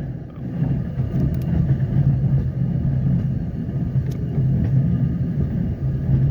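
Steady low engine drone and rumble of a slow-moving rail vehicle at about 7 mph, with a faint tick about four seconds in.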